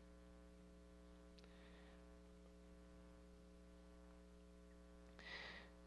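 Near silence with a low, steady electrical hum, and a brief faint hiss near the end.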